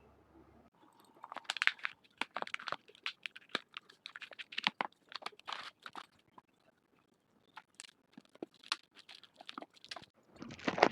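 Packaging crinkling and crackling as it is torn open and unwrapped by hand, in irregular bursts with a brief pause about two-thirds of the way through.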